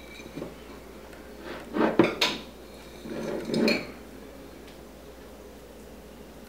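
Metal measuring spoon clinking and scraping against a glass jar while scooping salt, in two short bouts about two and three and a half seconds in.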